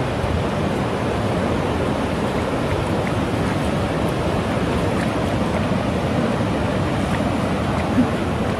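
Ocean surf washing in over a flat sandy beach: a steady rush of breaking waves.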